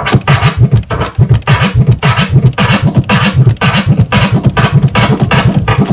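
A kick-and-snare drum sample scratched on a turntable with flare scratches: the record is pushed forward and pulled back while the crossfader clicks once at the middle of each stroke, cutting every stroke into two sounds. The strokes come in a fast, steady run.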